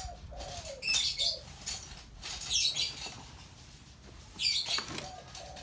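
Small birds chirping in short bursts, about every one and a half to two seconds, with a dove cooing in lower descending calls near the start and again near the end.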